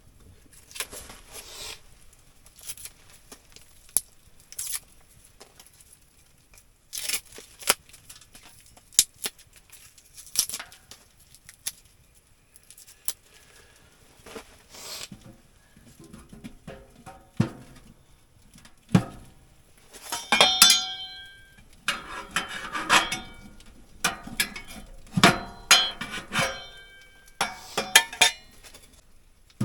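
Irregular clinks, knocks and rustling of hard items being handled, some clinks ringing briefly like metal cookware. They come thicker and louder in the second half.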